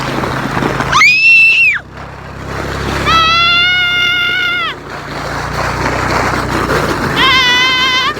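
Children squealing in long, high-pitched wordless cries, three times, over a steady rushing noise, while sledding down a snowy slope.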